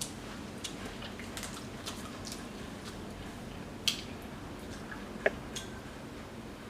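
Eating sounds: scattered wet mouth clicks and smacks of someone chewing food, about a dozen short ticks spread over several seconds, with a sharper one about five seconds in.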